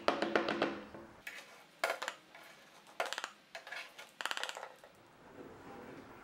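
Metal paint scraper scraping stripper-softened paint off a wooden dresser top in about six short, scratchy strokes, with light metal clinks as the paint goo is knocked off into a metal can. The scraping stops about five seconds in.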